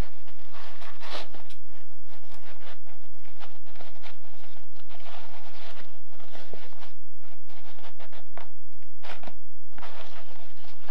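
Thin leather pouch rustling and creaking in the hands as its paracord drawstring is pulled up to gather the neck closed. The leather scuffs and rubs in uneven bursts.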